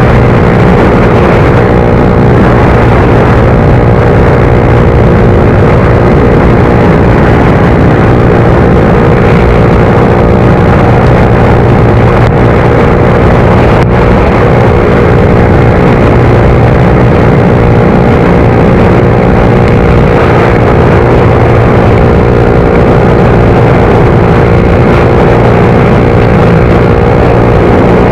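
Suzuki GSX-R125's single-cylinder four-stroke engine running at a steady speed while ridden, loud and even, with no revving up or down.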